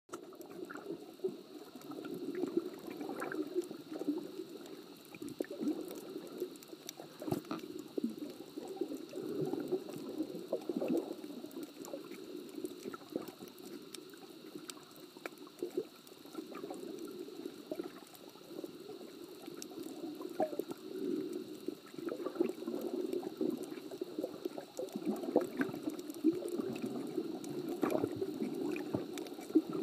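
Underwater sound from a camera held below the surface: muffled, swelling sloshing and gurgling of water moving around the camera, with scattered sharp clicks.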